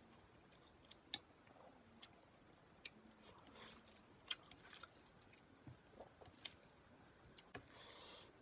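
Faint, irregular wet clicks and squishes of cooked rice being mixed into fish curry by hand.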